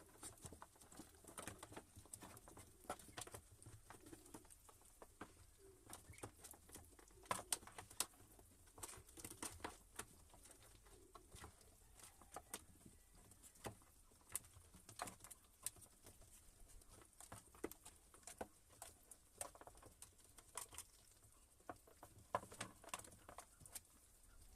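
Faint, scattered light taps and clicks at irregular intervals from birds moving about and pecking in their pen.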